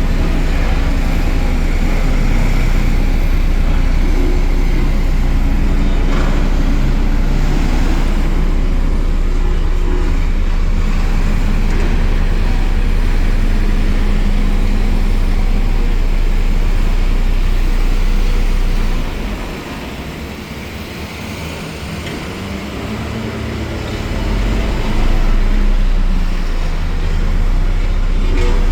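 Soil compaction machine running steadily: an engine with a strong, deep vibrating hum. About nineteen seconds in the deep hum drops out and the sound eases off for a few seconds, then it comes back at full strength.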